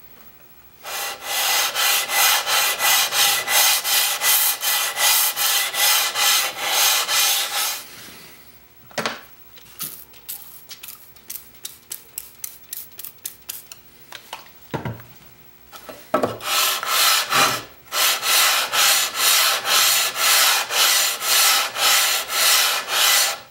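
Cast-iron side of an old Record trying plane rubbed back and forth on wet 100-grit wet/dry abrasive paper, dressing the rough side flat: steady scraping strokes at about three a second. The rubbing stops in the middle for several seconds, with a few short squirts of a spray bottle wetting the paper, then starts again.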